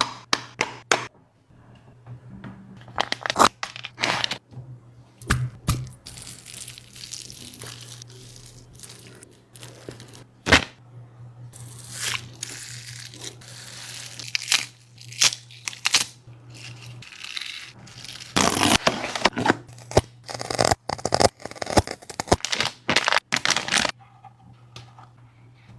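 A dog eating: irregular chewing, smacking and crunching, busiest in the last third.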